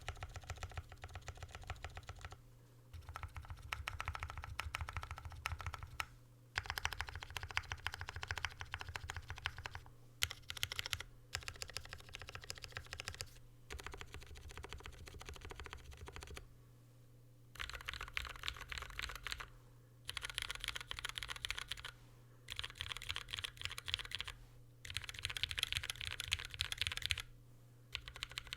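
Typing on a Sneakbox MGA Standard aluminum keyboard with retooled Cherry MX Brown switches and GMK keycaps: fast runs of keystroke clacks, broken by short pauses every few seconds.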